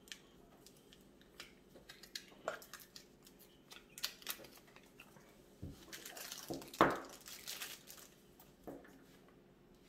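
Thin protective plastic film being peeled and crumpled off a new action camera: scattered crinkles and small handling clicks, loudest about seven seconds in.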